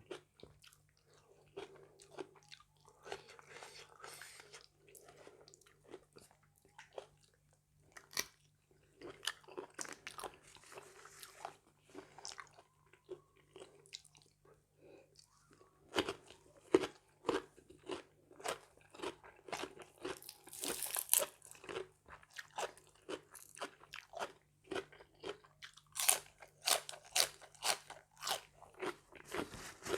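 A person chewing and biting through a mixed-seafood dish close to the microphone: irregular crunches and wet clicks of chewing, coming thicker in the second half.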